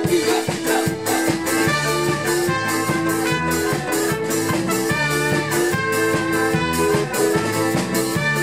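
Live band music from trumpet, acoustic guitar, accordion and drum kit, with sustained trumpet and accordion notes over a quick, steady drum beat.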